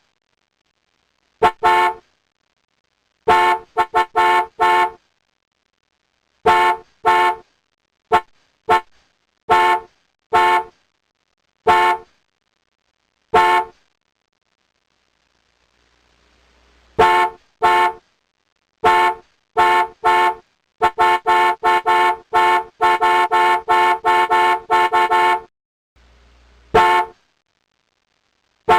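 Car horn honking in short beeps of steady pitch, singly and in twos and fours with pauses between. After a few seconds of silence near the middle comes a long run of rapid toots, about four a second, then one last honk.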